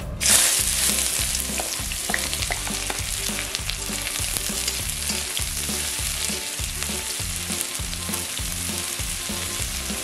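Chopped onions hit hot mustard oil in a kadai with a sudden loud hiss just after the start. They then settle into a steady sizzle as a metal spatula stirs and scrapes them around the pan.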